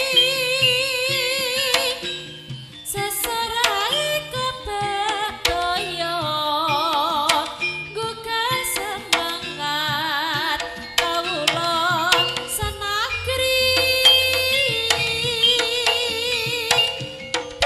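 Live jaranan music from a gamelan-style ensemble: a wavering melody line with strong vibrato over a steady pattern of sharp drum strokes, with a brief lull about two seconds in.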